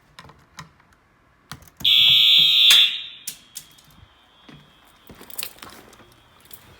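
Fire alarm horn sounds one loud, shrill blast about two seconds in, lasting about a second, during a fire alarm system test. A faint steady high tone lingers afterwards, amid scattered clicks and knocks.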